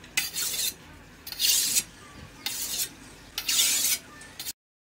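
Hand-forged katana blade being sharpened on a wet whetstone: a hissing scrape with each stroke of the steel across the stone, about one stroke a second.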